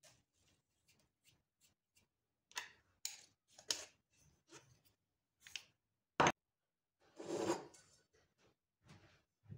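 Kitchen handling noises: a run of light clicks and knocks, a sharp click about six seconds in, and a noisy scrape lasting about a second just after.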